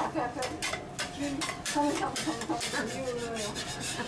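Metal spatulas scraping and rasping across a flat iron teppanyaki griddle in quick repeated strokes, about three or four a second, as egg is pushed and gathered into an omelette.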